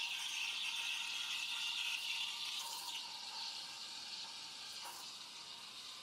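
Gaggia Classic steam wand hissing as it steams milk in a stainless steel pitcher, a steady rushing hiss that eases and gets quieter after about two and a half seconds.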